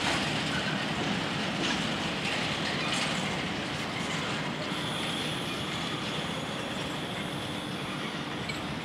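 Loaded steel-train freight wagons rolling steadily past, a continuous wheel-and-rail rumble with a few faint clicks, slowly fading. A thin, high, steady wheel squeal comes in about halfway through.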